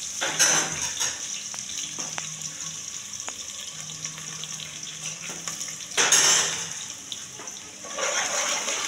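Metal spoon stirring a large aluminium pot of rice and water, scraping and tapping against the pot's side, over a steady hiss. The loudest scrape comes about six seconds in, with another near the end.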